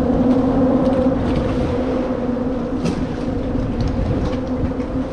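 Steady low rumble of vehicle traffic crossing the bridge deck overhead, with a constant two-note hum and a few faint clicks.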